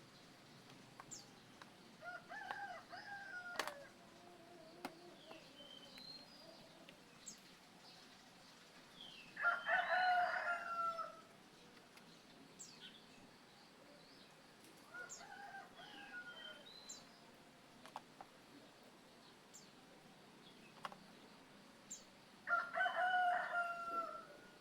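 A rooster crowing four times, roughly every six to seven seconds, the second and last crows louder than the other two. Short, high bird chirps sound in between.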